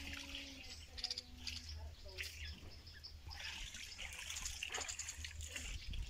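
White-eared bulbul giving repeated sharp chirping calls, thickest in the second half: the alarm of a parent bird with someone close to its nest.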